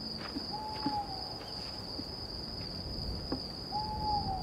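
Owl hooting: two single, slightly falling notes about three seconds apart, over a steady high chirring of crickets.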